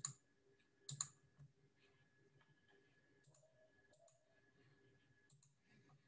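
Computer mouse clicks: two sharp clicks about a second apart at the start, then a few fainter ones, over quiet room tone with a faint steady hum.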